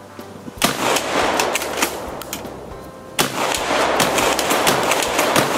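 Shotgun-style salt shaker gun being fired at a steak: two sharp shots, about half a second in and again about three seconds in, each followed by a dense crackle of clicks as salt crystals spray and scatter.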